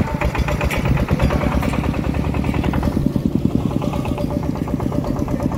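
Small vehicle engine running steadily at low speed with a rapid, even putter.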